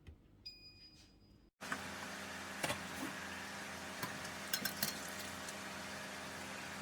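Near silence, then about a second and a half in a steady mechanical hum starts abruptly, with a few light clicks and clinks of kitchenware over it.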